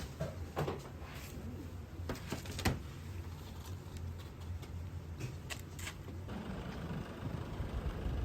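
Steady low rumble with a few sharp knocks and clicks scattered through it, and a broader hiss joining in about six seconds in.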